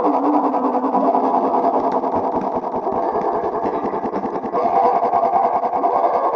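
A sneeze sound effect repeated and stacked so many times that it merges into one continuous, distorted buzz with a rapid pulse, slightly fuller about two-thirds of the way through.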